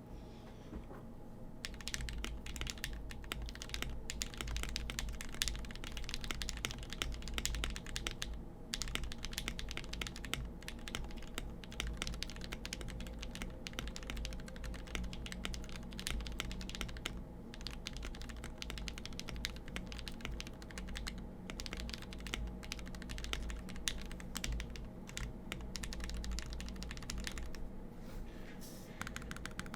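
Fast, continuous typing on a Portico mechanical keyboard with Gateron Milky Yellow linear switches, lubed with 205g0 and filmed, under PBT keycaps. The clicking of the keystrokes starts about a second and a half in, with a few brief pauses.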